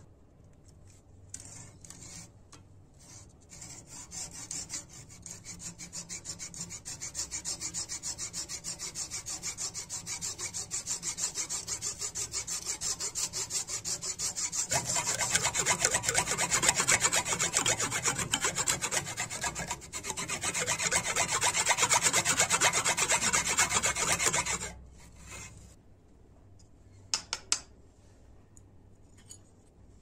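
Hand file rasping along the edge of a mountain goat horn handle scale held in a bench vise, in quick, even back-and-forth strokes. The strokes get louder about halfway through, break off briefly, and stop a few seconds before the end, followed by a few light metal clinks.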